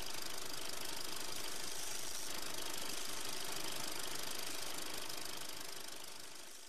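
Steady, even hissing noise from a production-company logo's soundtrack, fading out near the end as the logo fades to black.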